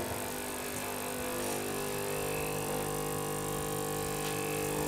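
Gaggia Magenta Milk bean-to-cup coffee machine's pump running while it brews espresso into the glass: a steady mechanical hum made of several held tones.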